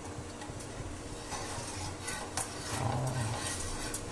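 Steady hiss of a dosa cooking in a non-stick pan over a gas burner, with a light metal spatula tap or two. A short low sound comes about three seconds in.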